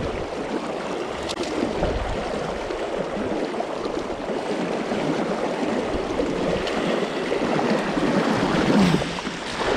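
Fast river water rushing through a riffle: a steady, noisy wash of current with no pauses, swelling a little louder just before the end.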